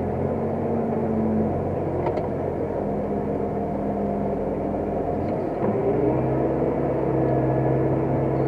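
New Holland T7050 tractor's six-cylinder diesel engine running steadily while ploughing. About five and a half seconds in, the engine note steps up in pitch and holds there. There is a brief click about two seconds in.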